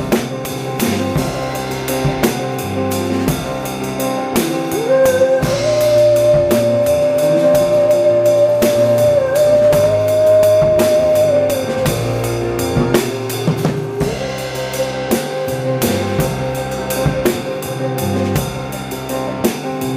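Live band music with a drum kit keeping a steady beat; a long held note comes in about five seconds in and lasts some six seconds.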